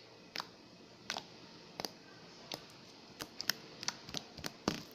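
Slime being pressed and squeezed by hand, giving off a dozen or so sharp little clicks and pops, spaced out at first and coming quicker in the second half.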